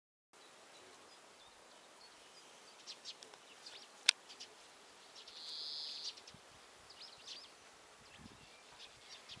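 Small birds chirping in short high calls against quiet outdoor background noise, with one sharp click about four seconds in and a brief high hiss a little after.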